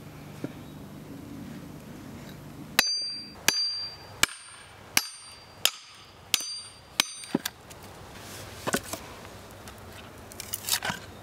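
Hammer striking the back of a hatchet head driven into a log section: about eight sharp metal-on-metal blows, roughly one every 0.7 s, each with a brief ring, splitting the wood. A few lighter cracks and knocks near the end as the split halves are pulled apart.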